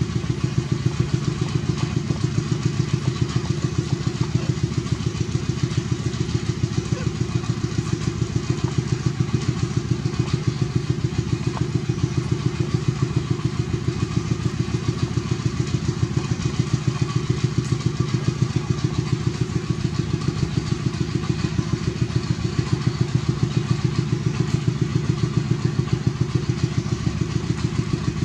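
A small engine idling steadily, with an even, rapid chugging.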